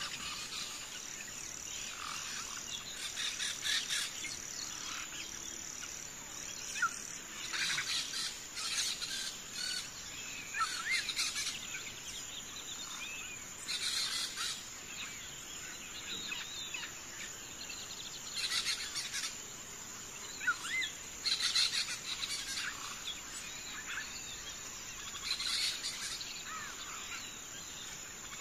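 Birds chirping in short rising calls over a steady high insect drone, with short bursts of hiss every few seconds.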